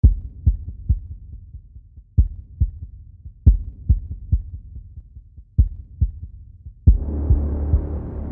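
Deep, heartbeat-like bass thumps in groups of two and three over a low hum, opening a music soundtrack. About seven seconds in, a fuller low drone swells in beneath the thumps.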